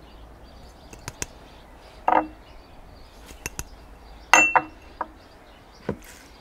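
Small glass spice dishes clinking and tapping as they are handled and emptied into a mixing bowl: scattered light clicks with a few louder clinks, the strongest about two seconds in and about four seconds in.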